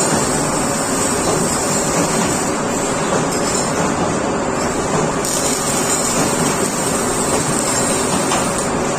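Continuous, steady mechanical noise with no pauses, of the kind heard from running industrial machinery.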